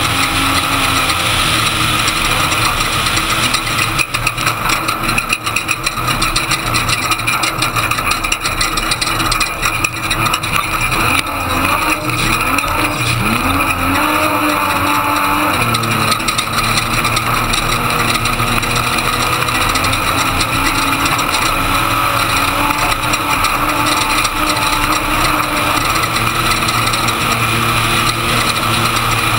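Class 1450 Ford Ranger desert race truck's engine running hard, heard from inside the cab over heavy wind and road noise. Through the middle the engine pitch rises and falls several times, and a stretch of knocks and rattles comes from the truck going over rough ground.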